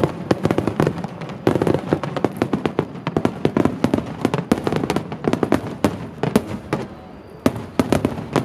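Wide starmine barrage of aerial firework shells bursting in rapid succession, with many overlapping bangs and crackle. It thins briefly about seven seconds in, then more shells burst.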